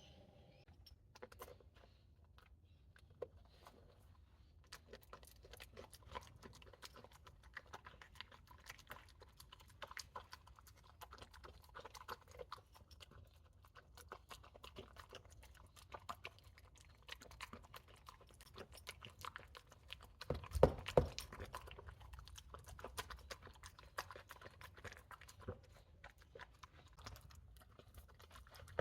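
A dog chewing and crunching dog food: a steady run of irregular crisp crunches, louder for a second or so about two-thirds of the way through.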